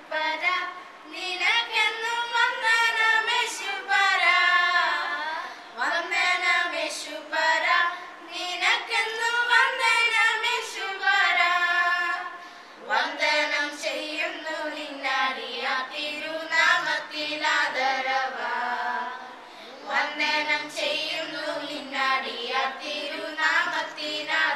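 A woman and children singing a song together in a group, in long phrases of held, gliding notes with short breaks between them.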